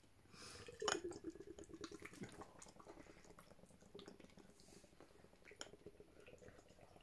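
Canned pale ale being poured into a tilted glass: a light knock about a second in, then a faint steady gurgle and fizz as the beer runs in and foams up.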